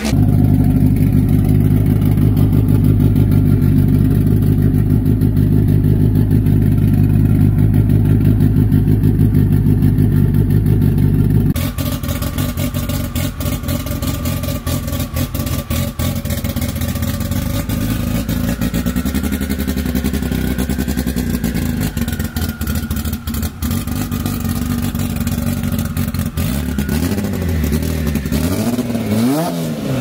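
Turbocharged Honda four-cylinder engines idling with locked VTEC, the high-lift cam profile engaged even at idle. The first engine runs with a steady, loud idle. About eleven and a half seconds in, the sound switches to a second engine, in a Civic hatchback, with a rougher, choppier idle and a short rise and fall in revs near the end.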